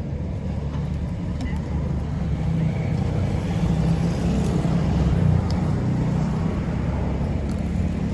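Road traffic: a steady low rumble of vehicle engines that swells a little near the middle, as if a car or truck passes close by.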